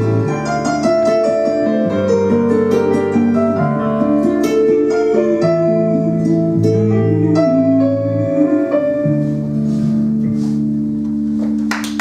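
Instrumental backing-track music: piano-like plucked keyboard notes over long, held bass notes, with no singing, dying away near the end as applause starts.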